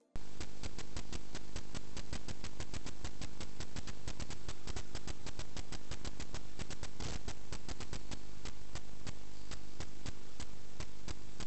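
Steady electrical hum with an even ticking about four times a second, as picked up on a sewer inspection camera's recorded audio.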